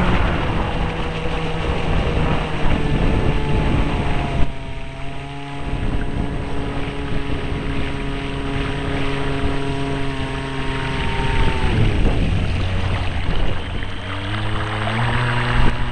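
Brushless electric motor of an RC model speedboat whining at speed over the rush and splash of water off the hull. The whine drops in pitch about three-quarters of the way through as the boat slows, then climbs again in steps near the end.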